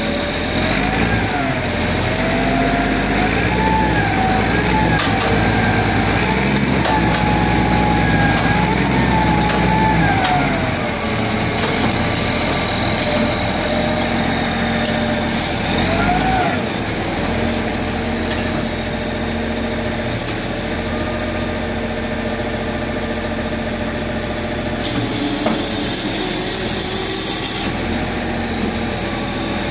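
Engine of a heavy-equipment machine running under load as its boom shifts an old truck, revving up and down over the first ten seconds or so, then running steadier with a brief rev about sixteen seconds in.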